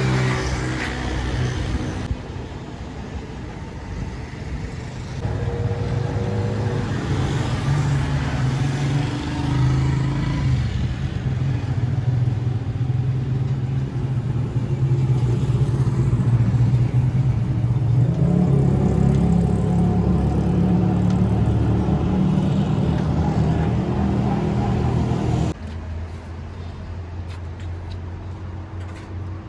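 Motor vehicle engines running in roadside traffic: a steady low engine hum that shifts and swells now and then. Near the end it cuts abruptly to a quieter traffic background.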